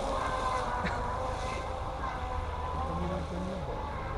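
Radio-controlled model boat's electric motor whining at speed out on the water, a steady high tone that sinks a little in pitch and fades slightly as the boat runs away.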